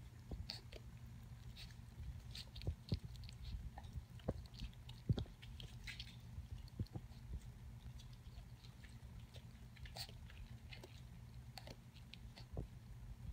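Puppy lapping up milk, a run of small irregular wet clicks and smacks from its tongue and mouth, over a steady low hum.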